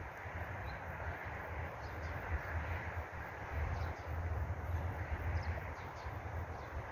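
Wind buffeting the microphone, a fluctuating low rumble over a steady rushing noise, with a few faint short bird calls in the second half.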